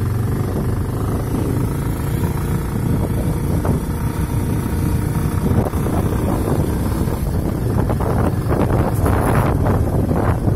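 Small two-wheeler engine running steadily while riding a rough dirt track, with wind buffeting the microphone, the gusts growing stronger in the last two seconds.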